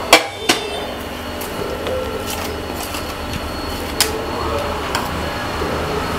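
Metal spatula and wooden spoon knocking against each other and the baking tray while pressing a millet and date mixture into it. A few sharp clicks, the loudest at the start and one about four seconds in, over a steady low hum.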